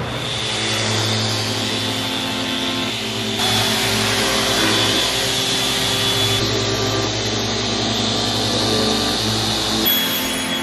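Electric random-orbit sander with a dust-extraction vacuum hose attached, running steadily over plywood panels: a constant motor whine over a hiss.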